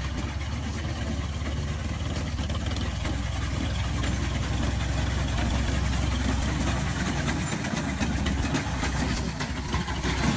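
Tractor diesel engine running steadily under load while its front-mounted reaper cuts standing wheat, with a rapid, busy clatter from the cutting mechanism over the engine's low hum.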